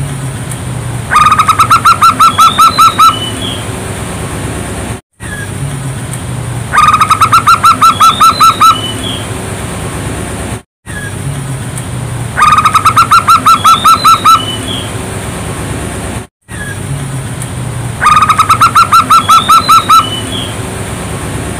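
Zebra dove (perkutut) song: a quick run of about a dozen evenly spaced cooing notes lasting about two seconds, with a couple of faint higher chirps after it. The same phrase repeats four times about five and a half seconds apart, with a brief dropout of silence before each repeat, over a steady background hiss and hum.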